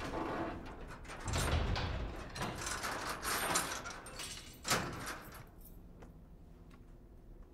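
Mechanical rattling and clanking for about five seconds, with a heavy thud a little over a second in and a sharp knock near the end, then it stops.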